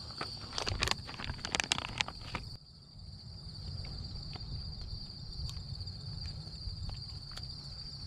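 Steady high-pitched insect chorus over a low rumble. Close rustling and clicks in the first two and a half seconds stop abruptly, leaving the insects and the rumble.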